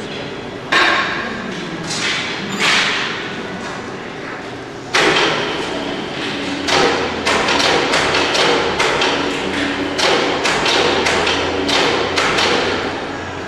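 Irregular thuds and knocks over a steady low hum. A few come in the first seconds, then a sudden loud knock about five seconds in starts a dense run of them, several a second.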